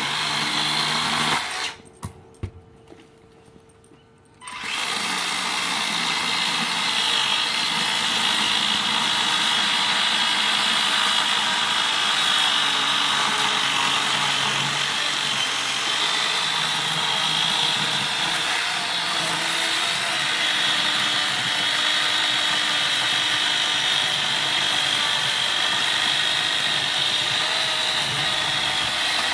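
Makita 18-volt cordless chainsaw running with a steady high whine. It stops briefly about two seconds in and starts up again a couple of seconds later.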